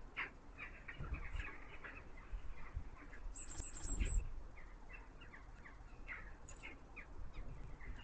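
Small garden birds chirping, many short chirps in quick irregular succession, with a brief run of very high, thin notes a little past the middle. A soft low thump sounds about four seconds in.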